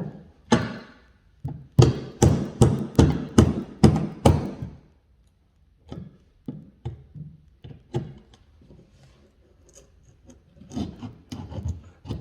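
Hand tool working a wooden stair tread in short strokes. There is a quick run of about eight loud strokes, roughly three a second, in the first half, then scattered quieter knocks and rubs.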